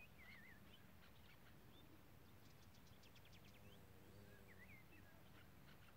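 Faint bird chirps and short warbling calls, with a quick dry trill of about ten notes a second near the middle, over a low steady hum.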